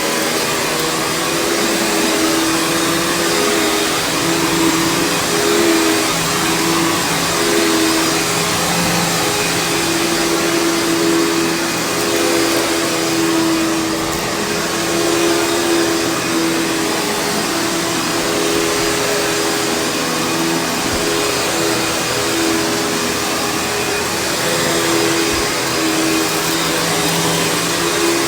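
Panasonic vacuum cleaner with a brush roll running steadily over carpet, a continuous motor whine with a low hum underneath. There is little debris rattling up the hose, because the carpet is already nearly clean.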